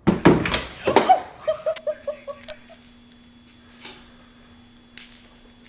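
A person's loud burst of laughter that trails off in a quick run of short 'ha' notes over the first two seconds or so, followed by a faint steady hum with a couple of light ticks.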